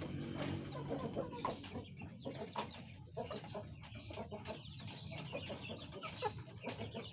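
Domestic chickens clucking, a scatter of short, irregular calls.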